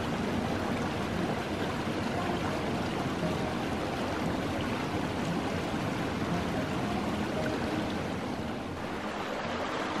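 Shallow creek running fast over rocks: a steady rushing and burbling of flowing water.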